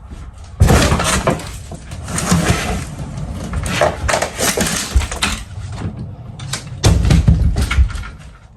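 Demolition debris, pieces of wall and drywall, crashing and breaking as it is thrown and smashed: a heavy crash about half a second in, crunching and cracking after it, and another heavy crash near the end.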